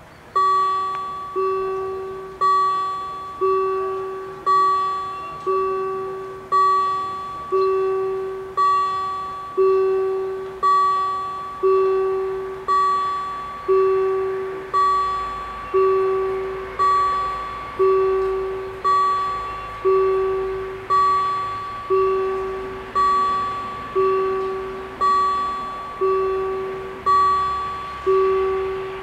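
Level crossing warning bells ringing steadily, about one strike a second, each strike dying away, starting just as the crossing activates to warn of an approaching train.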